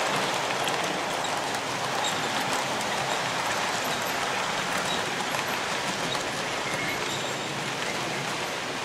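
Hornby 00 gauge model train running on the layout track: a steady rolling rumble and hiss of wheels on rails, with a faint low motor hum under it.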